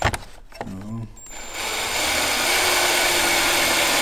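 Ryobi cordless drill starting up about a second and a half in and then running at a steady, constant speed as it turns a headlamp adjuster screw.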